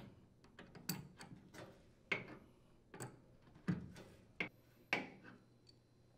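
Adjustable wrench clicking and knocking against a dryer's threaded leveling leg and steel cabinet base as the leg is turned into its hole: about ten sharp clicks at uneven intervals.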